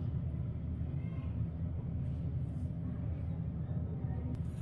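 A steady low background hum.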